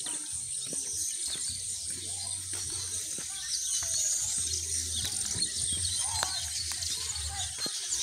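A colony of weaver birds chattering with many quick chirps, over a steady high insect trill.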